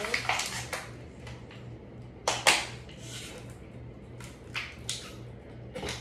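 Ceiling fan running with a low hum that pulses about three times a second, under irregular clattering knocks from a plastic bottle caught in the spinning fan; the loudest knocks are a pair about two and a half seconds in.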